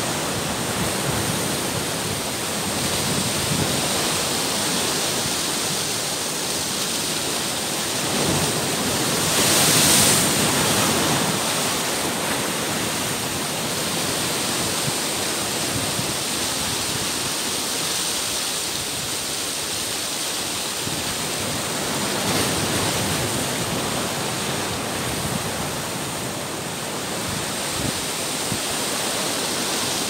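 Ocean surf breaking and surging against rocks: a continuous rush of churning whitewater, swelling louder about ten seconds in and again a little past twenty seconds.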